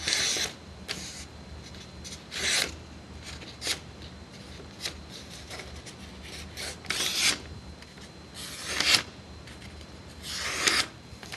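A sheet of printing paper being folded and creased hard with the fingernails: a series of short, scratchy rubbing strokes spaced a second or two apart.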